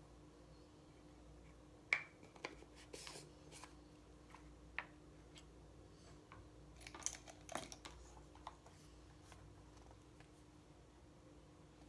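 Faint clicks, taps and rustles of makeup being handled: containers set down and a plastic eyeshadow palette picked up. The sharpest click comes about two seconds in, with a cluster of taps around seven to eight seconds.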